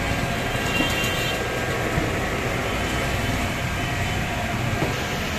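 Steady rumbling background noise with a hiss, without clear events.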